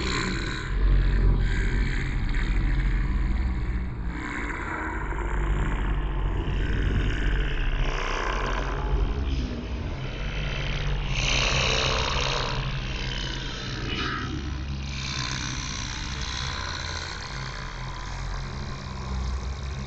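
Sound-effect drone: a sustained low rumbling hum with several steady low tones, under shifting layers of hiss that swell and fade, most strongly around the middle.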